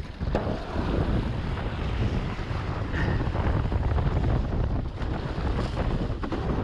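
Gusty wind buffeting the microphone of a camera on a windfoil's boom as the board gathers speed, with water rushing and splashing under it. The noise is heavy and low, and it rises and falls with the gusts.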